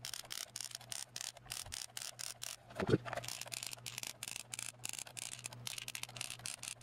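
Quick, irregular small clicks and scraping from a Cen-Tech digital multimeter being handled, its test probe and rotary range selector worked by hand, with one louder knock about three seconds in. A faint low hum runs underneath.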